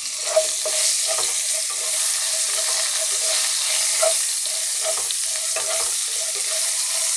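Bitter gourd slices sizzling as they fry in hot oil in a nonstick kadai, with a wooden spatula stirring them and knocking against the pan many times.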